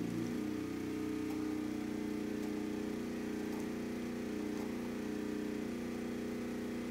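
Westinghouse WPRO8500 portable generator's single-cylinder engine running steadily under a heavy whole-house load. Its sound shifts about a third of a second in as the engine picks back up toward 60 Hz after being dragged down by the load.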